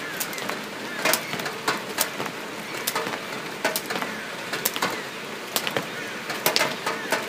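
Layered ambient soundscape of irregular sharp clicks and crackles over a steady hiss, with a few faint short chirps.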